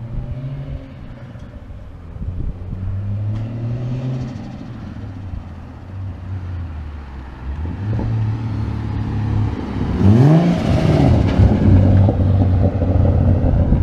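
Ford FG XR6 Turbo's turbocharged inline-six with a Varex muffler, driving by. The engine note grows louder from about eight seconds in, then rises in pitch as the car accelerates about ten seconds in. Wind buffets the microphone.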